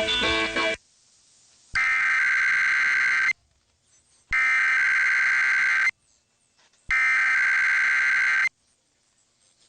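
Emergency Alert System SAME header: three identical bursts of harsh, screechy digital data tones, each about a second and a half long with about a second of silence between. They encode the start of an EAS test message. A station's music cuts off under a second before the first burst.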